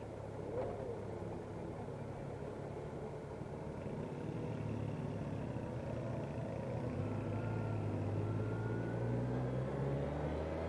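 Motorcycle engine running at low road speed, growing a little louder in the last few seconds.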